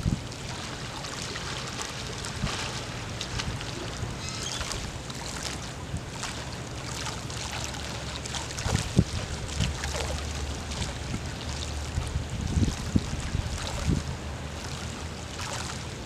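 Steady wash of moving water in an infinity pool, with low wind rumble on the microphone and scattered small splashes as a person wades through the water, a few sharper ones in the second half.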